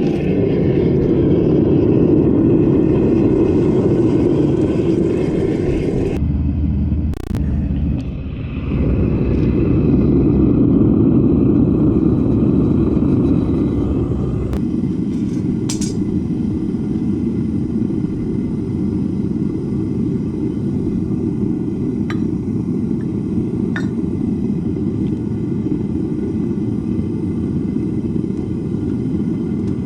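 Propane melting furnace's burner running with a loud, steady, low rumble, a few light metallic clinks heard now and then.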